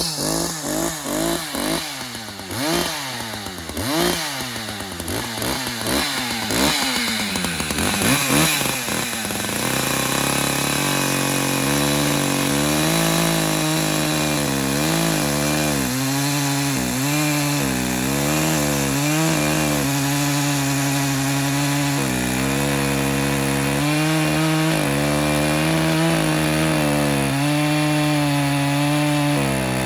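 Echo CS-590 two-stroke chainsaw revved up and down in quick blips, then about nine seconds in settling into a steady lower pitch that dips again and again as the chain bites into wood. This is the saw's first cut with its new 24-inch bar and chain.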